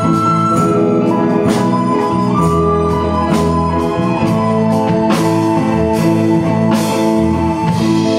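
Soprano recorder playing a held, sustained melody over a live band backing of electric keyboards, bass and drum kit, with regular drum hits.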